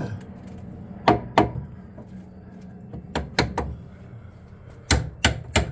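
Sharp knocks and clicks of tools and parts being handled during repair work on the bus's throttle linkage, coming in three short clusters of two or three.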